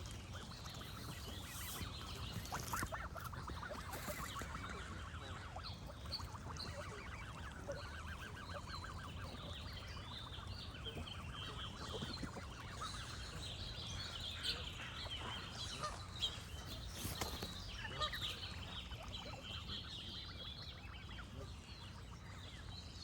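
Geese honking, with a run of rapid calls in the first half and a few louder honks a little past halfway. Small birds chirp throughout over a steady low rumble.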